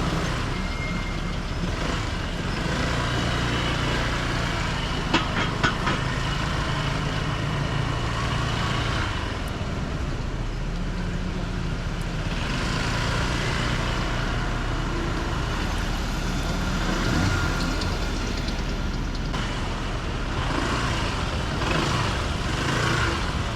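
Road traffic in a jam: a steady hum of idling and slowly creeping car and truck engines around a scooter, with a few short clicks about five seconds in.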